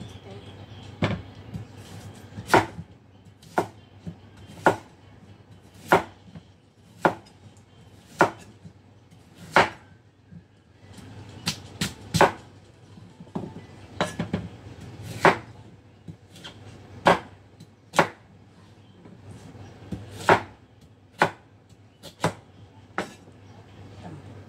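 Kitchen knife chopping on a wooden cutting board: single sharp chops about once a second, unevenly spaced, about twenty in all.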